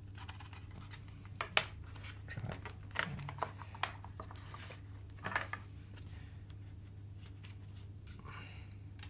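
Clear plastic model display case and foam insert being handled and opened: scattered sharp clicks, taps and short scrapes of hard plastic, with a brief rubbing near the end, over a steady low hum.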